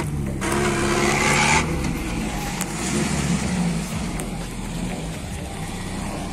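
Off-road 4x4's engine pulling hard as it climbs a loose dirt slope, with a rush of noise in the first second and a half, then running more steadily and slowly fading.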